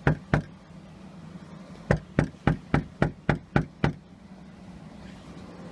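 Knocking on a door with the knuckles, fast and even at about four knocks a second: two knocks at the start, then a run of about eight from about two seconds in. It is a knock to be let back in after being locked out.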